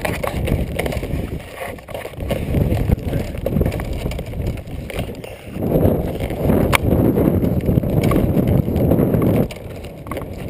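Wind buffeting the GoPro's microphone: a loud, low rumbling noise that is heaviest in the second half, with a sharp click about two thirds of the way through.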